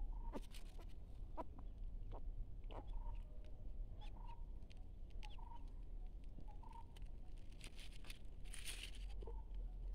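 Newborn puppies whimpering in short, high squeaks about once a second, with small clicks and a brief rustle near the end.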